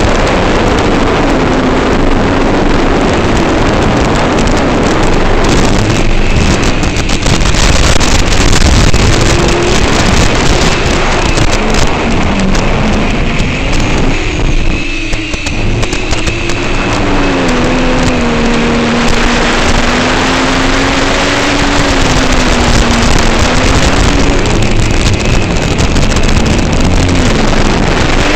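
FPV quadcopter's brushless motors and propellers, picked up by the onboard camera microphone: a loud buzzing whine whose pitch rises and falls with the throttle, over heavy wind rush. It briefly drops about halfway through.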